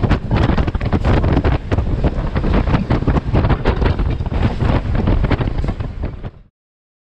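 Wind buffeting the microphone held out of the side window of a moving WDM3D diesel locomotive, gusty and uneven over the low rumble of the train running. It fades out quickly about six seconds in and cuts to silence.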